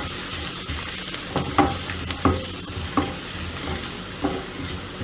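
Crushed garlic and ginger with dried red chillies sizzling in hot coconut oil in a non-stick kadai, stirred with a spatula that scrapes and knocks against the pan now and then.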